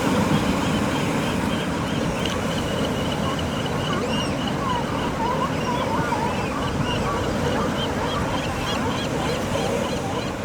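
Ocean surf washing steadily against the rocks, with animal calls from the wildlife on the rock over it: a quick, high call repeated several times a second throughout, and lower, wavering calls about halfway through.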